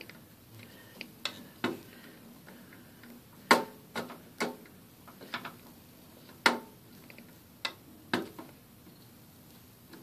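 Hand screwdriver driving small screws into a graphics card's circuit board: irregular sharp metal clicks and ticks as the tip seats and turns in the screw heads, two of them louder than the rest.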